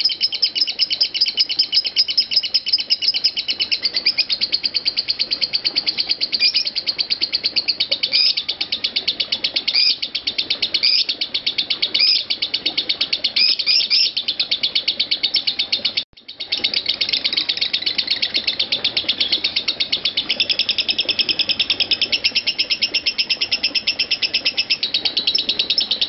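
Lovebird ngekek: a long, unbroken stream of rapid, high chattering notes, many to the second, breaking off only for a moment about two-thirds of the way through.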